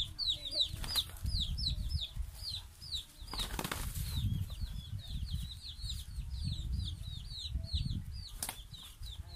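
Two hens fighting, wings flapping in short bursts, the largest about three and a half seconds in and another near the end. Under it runs a steady series of high, falling chirps, about three a second.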